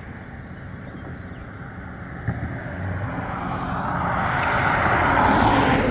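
Road traffic: a passing motor vehicle's tyre and engine noise growing steadily louder through the second half, loudest near the end as it goes by.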